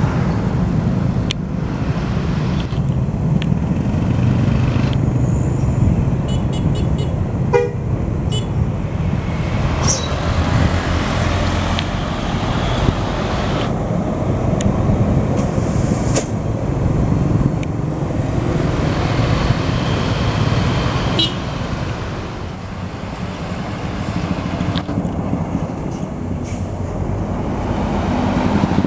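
Heavy road vehicle engine running with a steady low rumble, with a few short horn toots about a quarter of the way in, around three quarters of the way and near the end.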